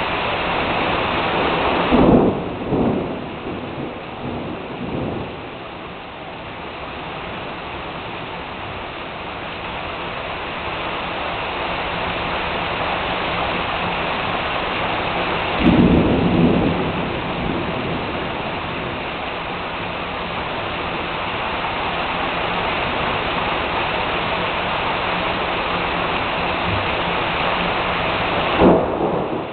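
Heavy rain pouring steadily, with three sudden claps of thunder: one about two seconds in that rumbles on for about three seconds, one midway, and one near the end.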